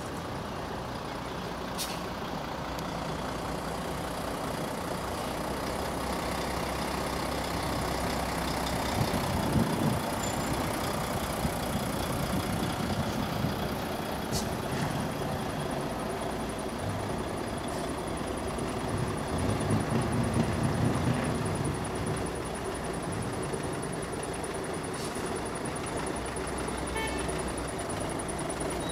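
Heavy trucks running as they drive past at low speed: a steady engine rumble that swells twice, about ten and twenty seconds in.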